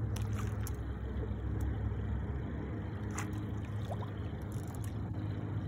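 A motor running with a steady low hum, with a few faint, brief chirps over it.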